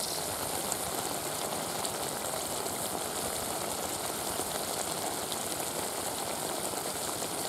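Thick sauce simmering and sizzling in a wok of cooked bird meat: a steady bubbling hiss.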